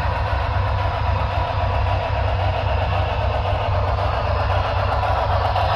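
HO scale model trains running: a steady rolling rush of metal wheels on the rails with the locomotives' motors whirring, over a constant low hum.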